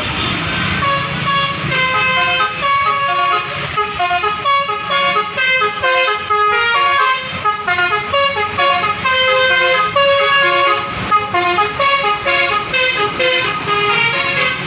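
Bus basuri 'telolet' musical air horn playing a tune of quick stepped notes, several horn trumpets sounding together, over a low rumble.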